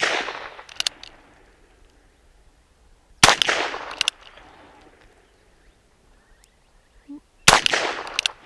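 Ruger Wrangler .22 LR single-action revolver firing two shots about four seconds apart, each cracking out with a short fading echo and followed by a couple of quick sharp clicks. The tail of a shot fired just before fades away at the start.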